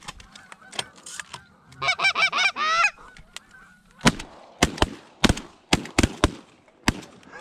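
Canada geese honking, a short cluster of calls about two seconds in, then a rapid volley of about eight shotgun shots from several hunters firing at the geese over roughly three seconds.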